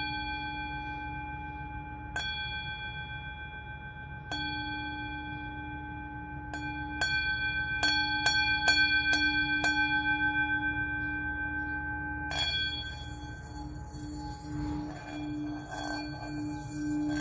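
Singing bowl struck with a wooden mallet, a few spaced strikes and then a quicker run of about eight, each renewing a long ringing tone. From about twelve seconds in the mallet is rubbed around the rim, so the low tone swells and wavers under a faint hiss.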